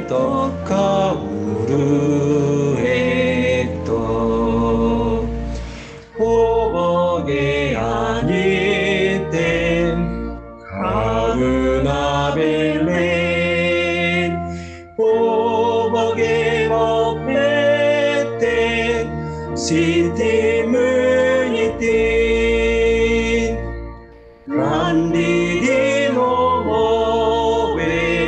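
A man and a woman singing a Sinhala hymn together over instrumental accompaniment, in long phrases with brief pauses for breath between them.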